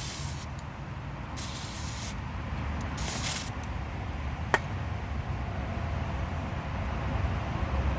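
Aerosol can of white lithium grease spraying in three short bursts of hiss, onto a brake caliper slide pin being re-lubricated. About four and a half seconds in there is a single sharp click.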